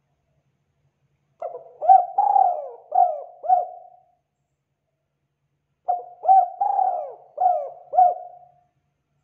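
Spotted dove cooing: two phrases of about five coos each, a couple of seconds apart.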